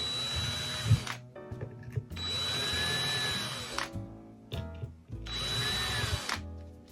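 Power drill boring small screw holes in a guitar headstock for new tuners: three short runs, each spinning up and winding back down.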